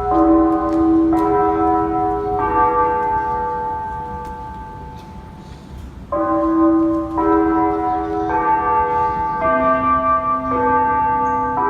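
Outdoor municipal disaster-prevention radio loudspeaker playing the daily 5 p.m. chime melody in bell tones. The notes come about one a second, and a long note is left to fade for a few seconds before the next phrase begins.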